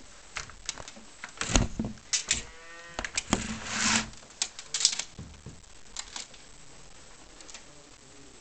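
Irregular clicks and knocks close to the microphone, typical of a handheld camera being moved, with a short squeaky pitched sound about two and a half seconds in and a rustle just after. The loudest knocks come about a second and a half in and near the five-second mark.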